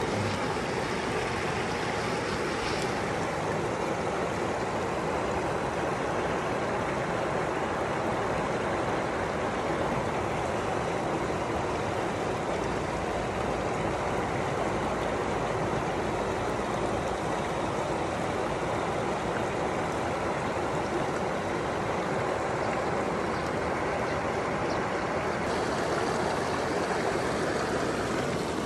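Mountain stream rushing over a rocky bed: a steady, even rush of water, with a little more hiss near the end.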